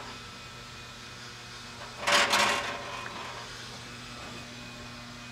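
Steady low hum, with a brief rustling scrape about two seconds in.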